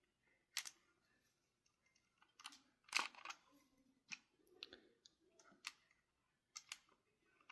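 Scattered small clicks and taps of a precision screwdriver and the plastic controller shell as Torx security screws are fitted back into an Xbox controller case, about eight separate clicks with quiet between them.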